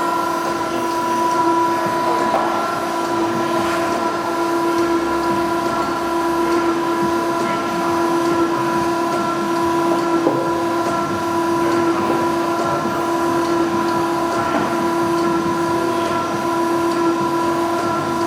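Okamoto ACC 1224DX surface grinder running: a steady whine made of several held tones over a rough mechanical rumble, with faint irregular ticks.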